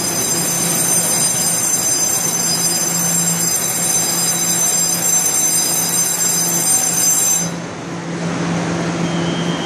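Electric train standing at a station platform: a steady high-pitched whine over a low hum and general noise, the whine cutting off suddenly about seven and a half seconds in.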